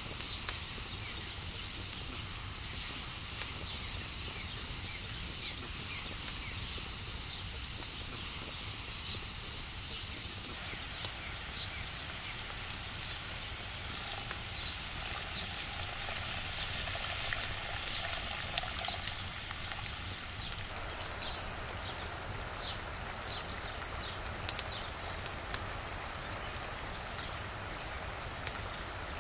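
Chili con carne simmering in a pan over a wood fire: a steady soft sizzle and hiss with scattered small pops and ticks as the thick sauce bubbles, and a wooden spoon stirring at times.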